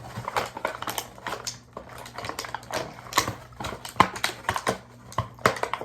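Plastic packaging crackling with irregular sharp clicks as a small plastic toy piece is worked out of a tight packaging insert.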